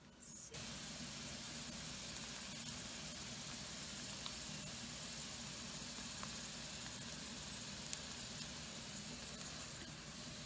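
Tofu pieces pan-frying in sesame and chili oil: a steady sizzle with a few small pops, starting suddenly about half a second in.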